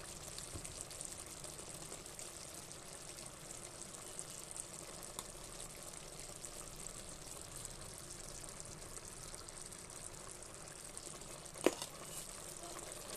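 Chicken pieces cooking in their own juices in an open pressure-cooker pot, a faint steady sizzle. Near the end, a steel spoon knocks once against the pot as stirring begins.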